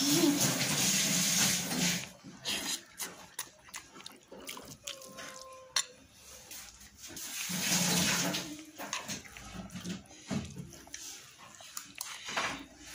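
A metal spoon stirs and scrapes cooked rice and greens around a pan, with wet mixing noises in two louder spells. Near the end come the mouth sounds of eating.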